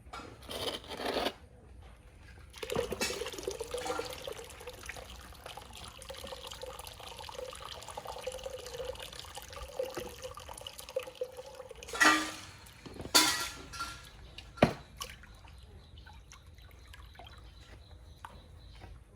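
Bath water running steadily for several seconds, then a few short, loud splashes.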